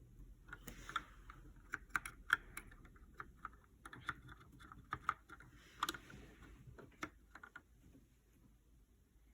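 Typing on a GK61 mechanical keyboard with Gateron Optical Brown switches: a quick, irregular run of keystrokes that stops shortly before the end.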